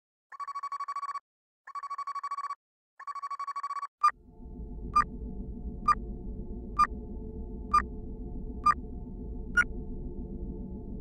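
Telephone ringing three times, each ring a fast trill of about a second. After the third ring a steady low hum starts, with a short sharp beep about once a second.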